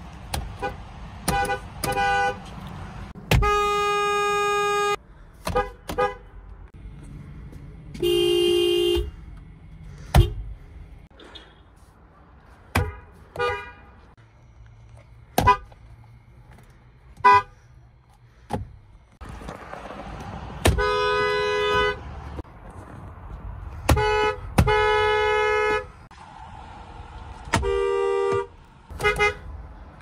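A string of car horns from different cars, one after another: quick taps and held blasts of about a second and a half, each a steady chord, most of them two-tone horns.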